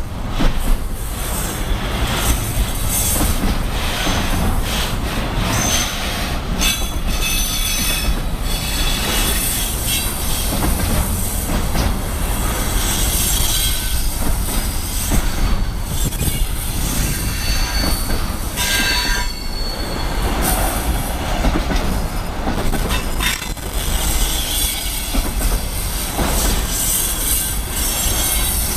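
Container freight train's wagons rolling past at speed, a steady loud rumble of steel wheels on the rails with clicks over the joints. The wheels give brief high squeals about six seconds in and again around nineteen seconds in.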